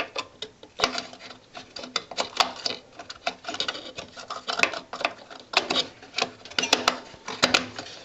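Irregular plastic clicks and taps as a RAM module is pressed into a desktop PC's memory slot and its retaining tabs are clipped shut.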